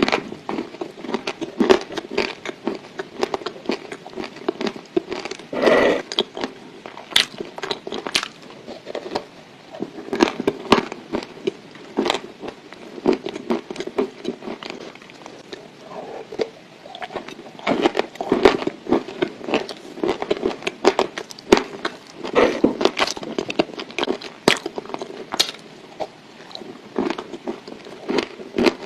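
Close-miked biting and chewing of dry clay: irregular crisp cracks and crunches over steady grinding between the teeth.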